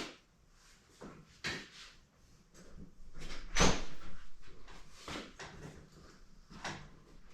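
A door being handled: a string of separate knocks and clunks, the loudest about three and a half seconds in.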